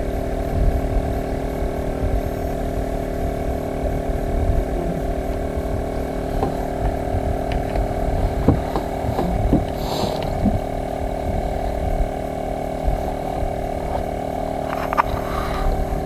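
Fishing boat's engine running steadily: an even drone with a few light knocks.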